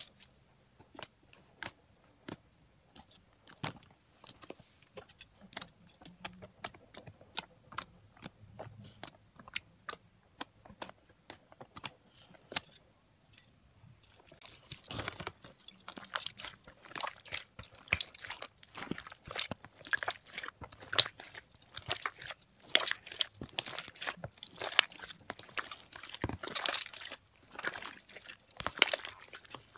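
Hands pressing and kneading a large mass of slime: sparse wet clicks and pops at first, turning to dense, louder squelching and crackling from about halfway through as the slime is worked harder and squeezed.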